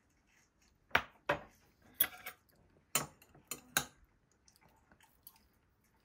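Metal chopsticks clinking against ceramic dishes: a run of about seven sharp clicks between about one and four seconds in, as pieces of pancake are picked up.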